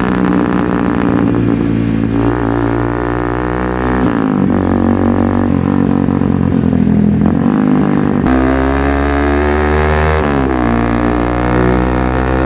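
Bajaj Pulsar 220's single-cylinder engine through a full-system aftermarket exhaust (bend pipe with an SC Project slip-on) running loudly inside a tunnel. The exhaust note rises and falls several times, with sudden shifts in pitch about four, eight and ten seconds in.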